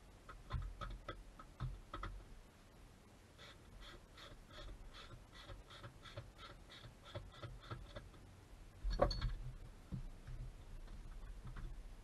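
Ratchet wrench clicking in a run of quick, even strokes while tightening a 10 mm plastic nut, with scattered knocks from handling and a louder thump about nine seconds in.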